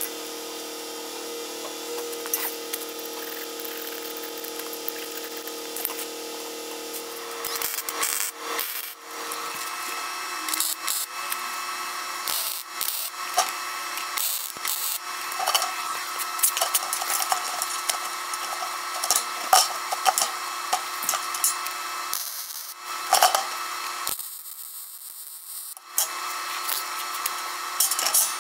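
MIG welder laying short welds on steel square tubing: an irregular sizzling crackle in several runs with short pauses, coming in about eight seconds in over a steady background hum.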